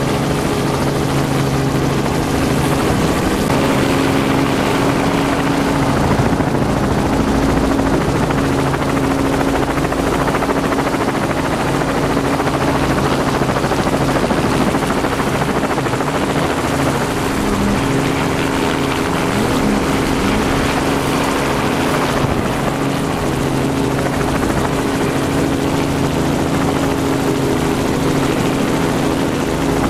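Helicopter rotor and engine running steadily in flight, heard from on board through an open door.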